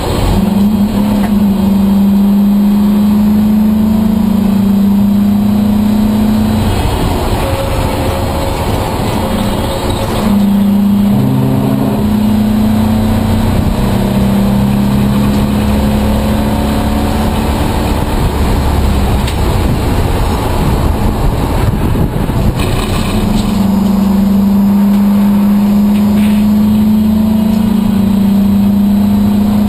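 Race car engine running hard, heard from inside the cockpit: a loud, steady engine note that climbs slowly, drops away about six seconds in, comes back with a few quick steps in pitch around ten to twelve seconds, eases off again around twenty seconds and returns strong near the end.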